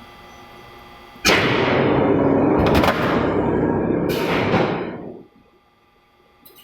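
A press machine working: a loud burst of noise starts suddenly with a sharp knock about a second in, carries on for about four seconds with another knock partway through, then dies away, over a steady machine hum.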